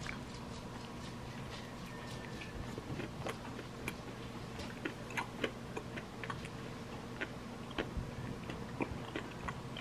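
A person chewing a mouthful of soft filled doughnut with the mouth closed: faint, irregular wet clicks and smacks, several a second at times, over a steady low room hum.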